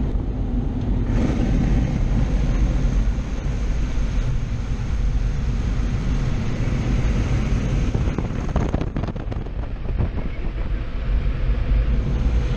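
Automatic car wash equipment running around the vehicle, heard from inside the cabin: a loud, steady rushing of water sprays and air dryers, with gusty buffeting about nine seconds in.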